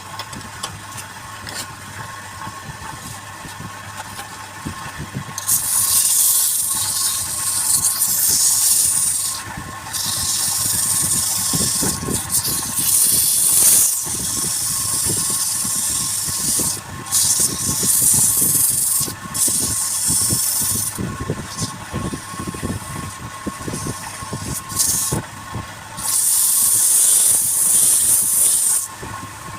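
Wood lathe running with a steady hum, while a turning tool cuts the spinning wood in repeated passes: a loud hiss that starts and stops again and again, beginning a few seconds in.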